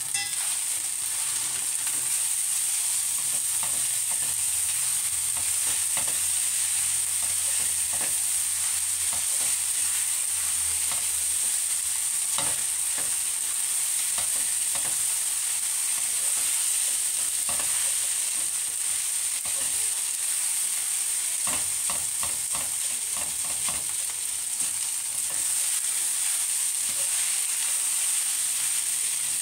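Fried rice sizzling steadily in a stainless steel wok, with irregular scrapes and taps of a spatula stirring and turning it.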